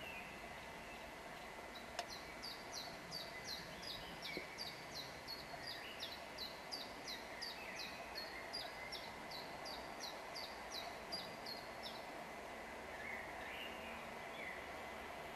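A songbird singing a long run of short, sharp, falling high notes, about three a second, which stops about twelve seconds in. Fainter calls from other birds and a steady outdoor hiss sit underneath.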